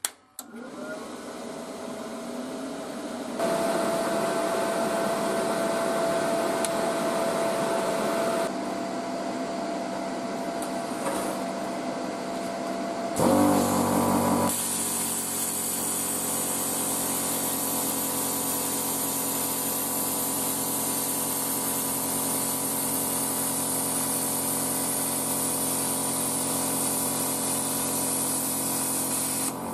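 Parkside PPSK40A1 plasma cutter switched on with a click, its cooling fan and built-in air compressor spinning up with a rising hum and then running steadily. About halfway through, the plasma torch fires and cuts 0.8 mm steel sheet with a steady loud hiss over the compressor's hum.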